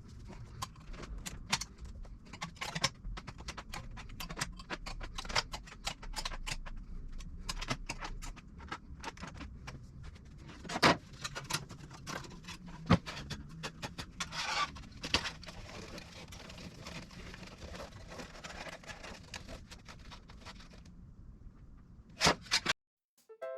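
Irregular metallic clicks, taps and scrapes of hand work on aluminum sheet, with a few louder knocks; the sound cuts off suddenly near the end.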